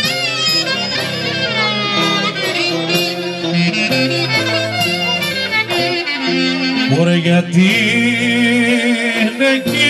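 Live Epirote folk music: a clarinet plays an ornamented melody with sliding notes, over a steady low accompaniment from the band, amplified through PA speakers.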